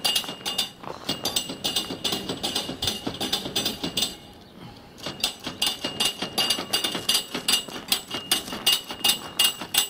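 Footsteps crunching and squeaking on cold packed snow, a quick regular run of steps that stops for about a second a little past the middle and then goes on.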